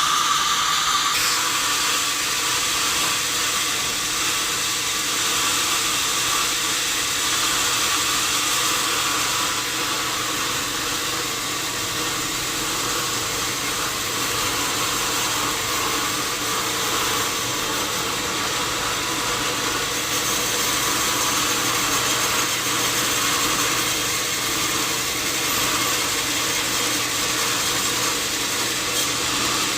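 Sawmill machinery running steadily: a continuous mechanical hum with a hiss over it.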